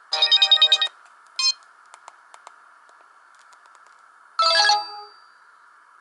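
Samsung GT-E1050 phone speaker playing short electronic ringtone jingles: a quick run of notes at the start, a brief chirp about a second and a half in, and another short jingle of several notes about four and a half seconds in. A faint steady hiss sits in the gaps.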